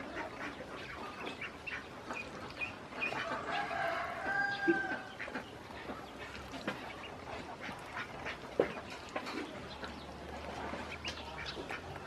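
Ducklings feeding from a dish, with a patter of quick clicks from their bills and short high peeps. A longer, lower call comes a few seconds in.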